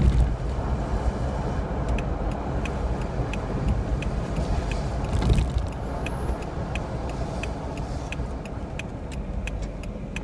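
Steady engine and tyre rumble heard inside a car's cabin on a wet road. From about two seconds in, the turn-signal indicator ticks regularly, two or three clicks a second. A louder bump comes about five seconds in.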